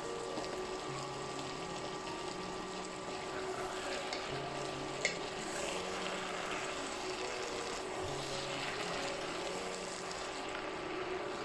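Food cooking in a pan with a steady sizzling, bubbling hiss, over soft background music with held notes. A single sharp click about five seconds in.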